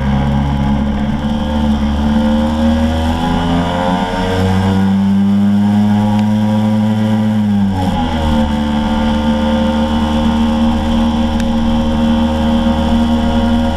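Scooter engine running under way at speed. Its pitch climbs for a few seconds, drops sharply about eight seconds in, then holds steady.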